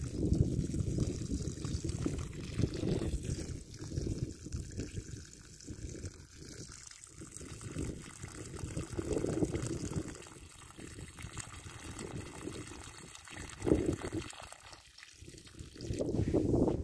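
Water running out of the end of a clear plastic siphon hose and splashing onto wet ground into a puddle: a working siphon flowing with no pump. The flow swells and eases unevenly.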